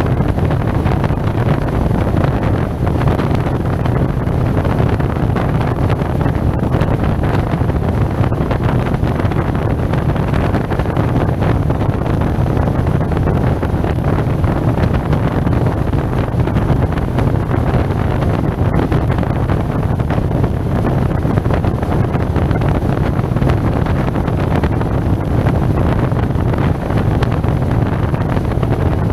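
Steady wind rush on a helmet-mounted microphone while riding a SYM Maxsym TL 508 maxi-scooter at a constant road speed, with a low drone from the engine and road underneath.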